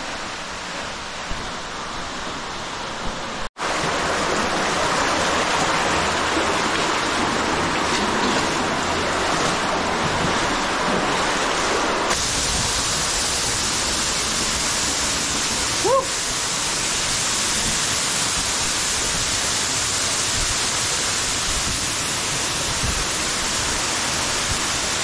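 Steady rushing of a waterfall pouring into a deep cave pit, a loud, even roar of falling water. The sound changes abruptly twice, and a short rising squeak cuts through about two-thirds of the way in.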